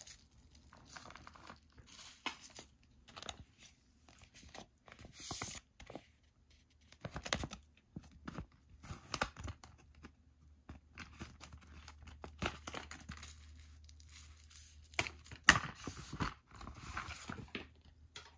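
Plastic packaging crinkling and tearing in irregular bursts as a fabric slogan banner is unwrapped by hand, with the loudest crackle about three-quarters of the way through.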